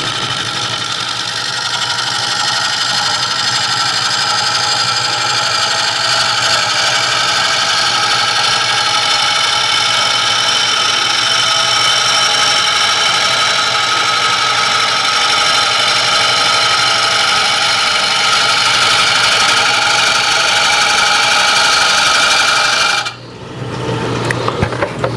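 Wood lathe spinning a green red oak bowl blank while a bowl gouge takes roughing cuts, knocking off the rough corners. It is a loud, steady run with several high whining tones, and it cuts off sharply near the end.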